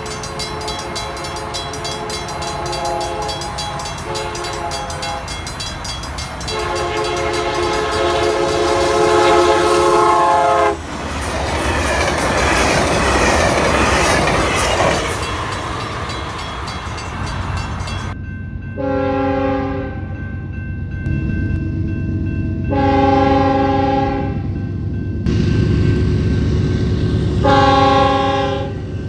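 Nathan Airchime K3L horn on a Metrolink F125 passenger locomotive sounds two long blasts, then the train passes close by with a loud rushing wheel noise. After a cut, a BNSF GE Dash 9-44CW freight locomotive's Nathan K3LLA horn sounds three short blasts over the steady drone of its diesel engine.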